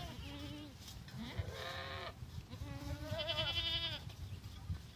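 A newborn lamb bleating three times, the last call long and quavering, over a low rumble.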